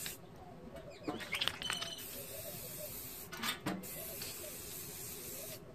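Aerosol spray paint can hissing as paint is sprayed onto a metal folding chair: a short burst at the start, a pause of about two seconds with a few light knocks, then one steady spray of about three and a half seconds that stops just before the end.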